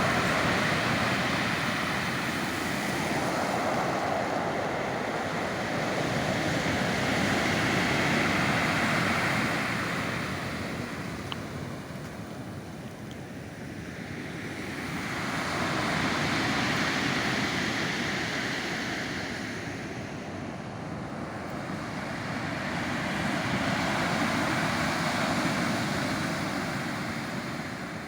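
Black Sea surf washing onto the shore, swelling and ebbing in slow cycles as each wave breaks and draws back, about every eight seconds.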